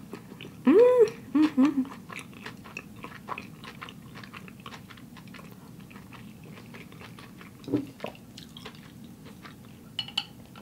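Close-miked chewing of a sushi roll, with soft wet mouth clicks throughout. About a second in comes a short hummed "mmm" that rises and falls, followed by two shorter hums, and near the end a brief sip through a straw.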